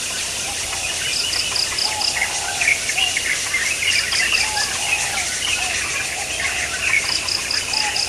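Birds chirping and calling, with a short high trill of about five quick pulses that repeats about every three seconds.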